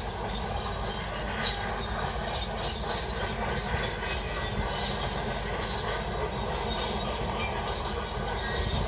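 Shantui crawler bulldozer working, its diesel engine running steadily under the metallic clatter and squeal of its steel tracks.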